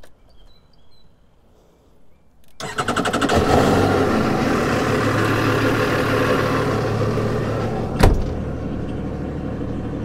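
The twin engines of a Yamaha 210 FSH Sport jet boat start up about two and a half seconds in and settle into a steady idle. About eight seconds in there is a sharp thud as the engine hatch shuts, and the running goes a little quieter. With the hatch closed over the Kilmat-lined bay, the owner takes what remains for mostly exhaust noise from the stern.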